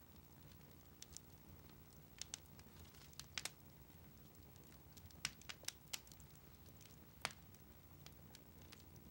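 Near silence: a faint low hum with about a dozen sharp, irregular clicks and crackles scattered through it.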